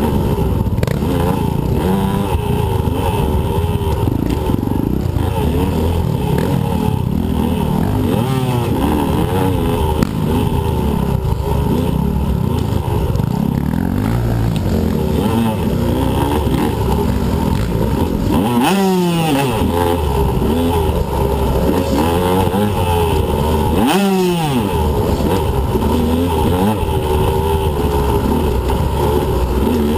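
2015 Husqvarna TE125 two-stroke dirt bike engine running hard, its revs rising and falling constantly as it is ridden. Twice in the second half the pitch drops sharply and climbs again, about five seconds apart.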